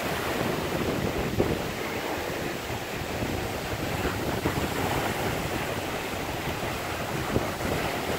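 Ocean waves breaking and washing over a rocky reef shore in a steady rush of surf, with wind rumbling on the microphone.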